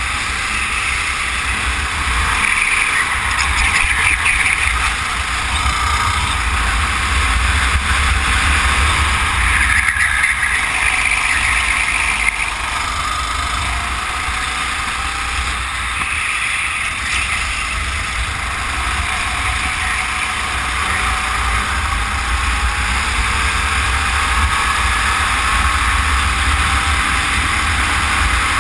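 Racing kart engine running hard, its pitch climbing and falling back several times as it accelerates and lifts, over a steady low rumble.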